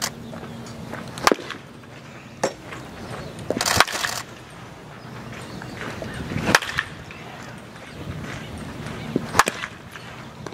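Baseball bat hitting pitched balls in batting practice: a string of sharp cracks a second or a few seconds apart, with the loudest about six and a half and nine and a half seconds in.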